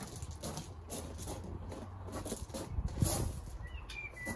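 An exercise mat being unrolled and laid out on gravel, with footsteps crunching on the stones: an irregular run of rustles and scrapes, the loudest about three seconds in.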